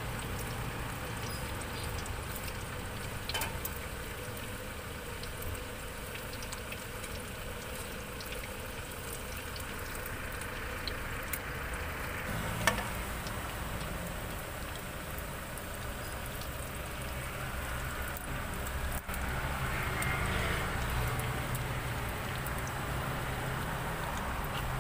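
Hot oil bubbling and sizzling as skewered fishballs deep-fry in a stainless steel pot, over a low steady rumble. A few sharp clicks cut through, the loudest about halfway through.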